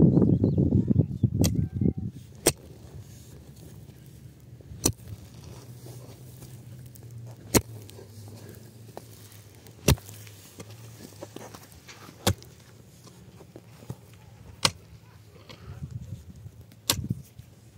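A mattock striking stony, gravelly soil in slow, regular blows, each a sharp crack, about every two and a half seconds, eight in all. A low rumble fills the first two seconds.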